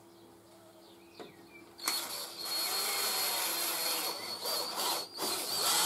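Cordless drill running, boring a small hole in the top of a scroll saw's arm. It starts about two seconds in, stops briefly near the end, then runs again.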